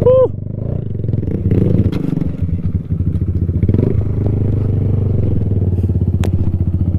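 Kawasaki Z125 Pro's small single-cylinder engine running steadily at low revs while the bike rides over a rough dirt trail, the chassis clattering and knocking over bumps. A brief falling squeak right at the start.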